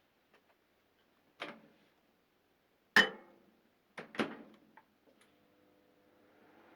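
Sharp clacks and knocks of a microwave oven being handled, the loudest about three seconds in, then the oven switching on for a test run and starting a low steady hum that grows toward the end, after its two burnt ceramic resistors were replaced.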